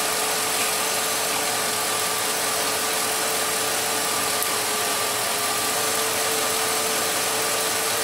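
2001 Jeep Grand Cherokee's 4.7 V8 idling steadily, with a steady whine on top. It keeps running without stalling while its fuel pump fuse is pulled and replaced.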